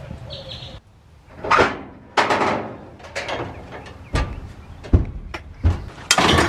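Camping gear being stowed on shelving in a storage shed: swishing handling of bags, then a run of knocks and thumps against the shelves, the loudest crash just before the end.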